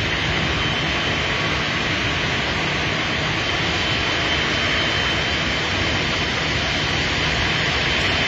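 Crane machinery running steadily while it holds a marble block on wire-rope slings: a continuous drone with a constant high whine.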